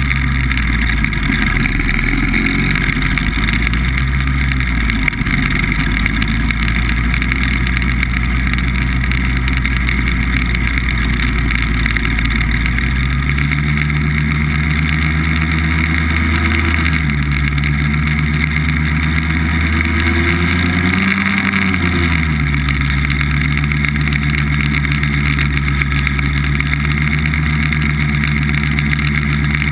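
BBV2+2 hovercraft's engine and fan running loud and steady, the engine note changing pitch a few times with the throttle, about a third of the way in and again around two-thirds.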